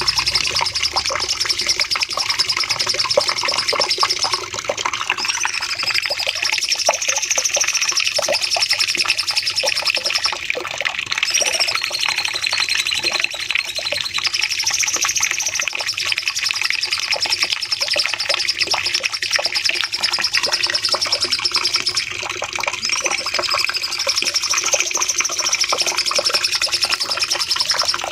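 Cucak cungkok songbird singing a long, unbroken run of rapid chattering song, with looping whistled notes that rise and fall every few seconds.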